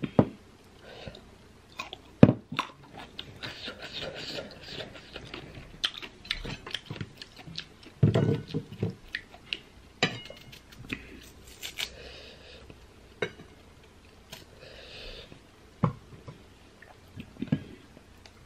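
Crisp bites and crunchy chewing of raw green baby mango slices coated in a chili and shrimp-paste dip, in irregular bursts of sharp snaps, the loudest about two seconds in.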